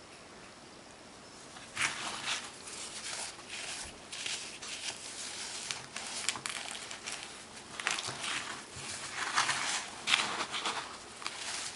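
Chunks of baking soda being crushed: quiet at first, then irregular crunching and crumbling from about two seconds in, going on in uneven clusters of crunches.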